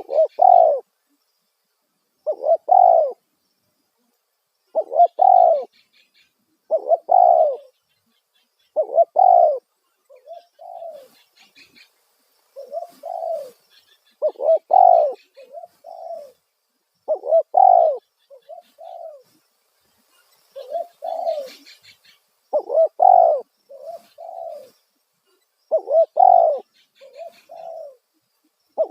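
Spotted dove (tekukur) cooing over and over in loud phrases about every two seconds, with quieter coo phrases between them. This is the loud 'kuk satu' song used as a lure call for wild doves.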